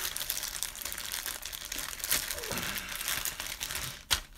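Plastic zip bags of cardboard game counters crinkling as they are packed and pressed down into a cardboard game box, with a couple of sharp knocks near the end.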